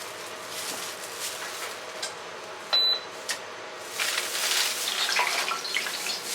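A short, loud electronic beep about halfway through. From about four seconds in comes running, splashing water with small clicks.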